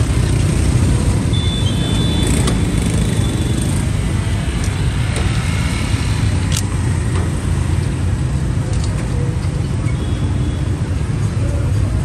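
Busy street-market ambience dominated by a steady low rumble of traffic and motorbikes. A few brief high tones sound early on, and there is a single sharp click about six and a half seconds in.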